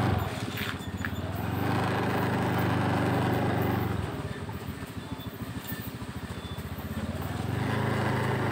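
Small motorcycle engine running at low speed, easing off to an uneven idle from about four seconds in and picking up again near the end.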